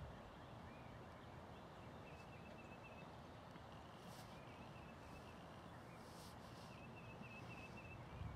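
Near silence: faint outdoor ambience with a thin, high, wavering chirping that runs on and off.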